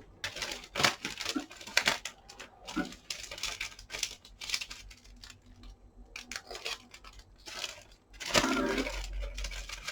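Rustling and crinkling as materials are handled, broken by sharp taps and clicks, with a longer, louder rustle near the end.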